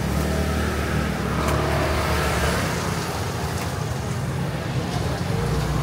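A motor vehicle engine running close by, a steady low hum that drops back about two and a half seconds in and swells again near the end, over street traffic noise.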